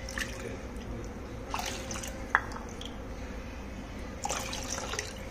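Water poured from a glass into a plastic measuring cup and tipped into a pot of buttermilk, with a few light clicks, one sharper a little past two seconds in.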